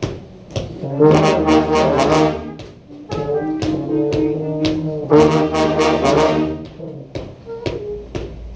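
Street brass band of trombones, trumpets and low brass, with percussion, playing a funk riff in rehearsal. The playing comes in two loud phrases with a short break about three seconds in.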